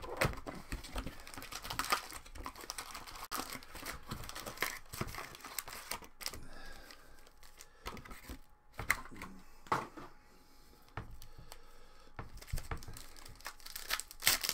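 Foil-wrapped Metal Universe hockey card packs crinkling and tearing as a hobby box is opened and the packs are handled and ripped open, a continuous run of irregular crackles and small clicks.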